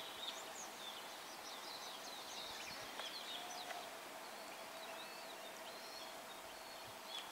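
Small birds chirping and calling in quick, short notes over a steady hiss of flowing river water, with a faint steady tone coming in about halfway through.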